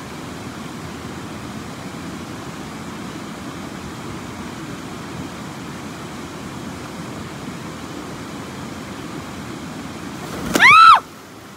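Steady rush of shallow creek water. Near the end, a loud, short, high-pitched whoop from a person, rising and then falling in pitch.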